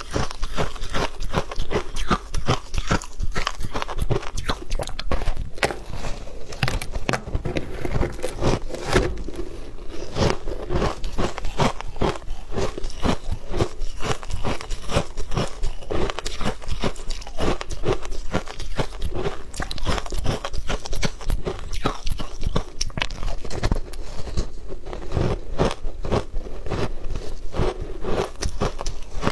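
A block of frozen shaved ice being bitten and chewed: many crisp crunches and crackles in quick succession.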